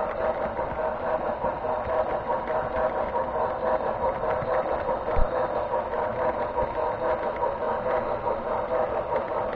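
HO-scale model train running along the track, picked up close by a camera riding on the train: a steady whine from its motor and gearing with a running rattle from the wheels. One sharp knock about five seconds in.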